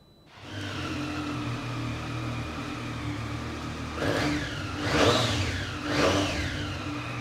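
Triumph Street Triple RS 765 inline three-cylinder engine, fitted with an Arrow aftermarket exhaust, starts up about half a second in and idles, then is revved three times in quick blips before settling back to idle. It has the high whistling whine the Triumph triple is famous for.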